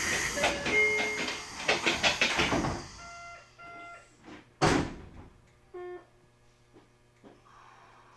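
Passenger doors of a Tokyo Metro 8000-series train closing. It opens with the two-note Eidan door chime and a clatter of door panels. About halfway through comes one short, loud bang as the doors shut, followed by a few short electronic beeps.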